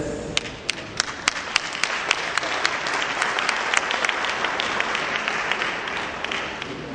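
Audience applauding: a few separate claps that quickly build into steady clapping, then thin out and fade near the end.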